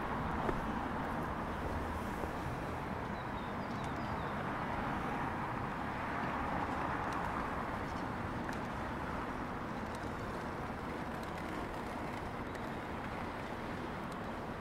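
Steady city street noise with a few faint clicks, swelling slightly about six to seven seconds in.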